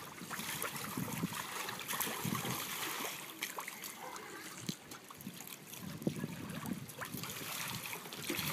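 Pool water sloshing and trickling around an inflatable water-walking ball as a child crawls and rolls it, with a few faint clicks and knocks.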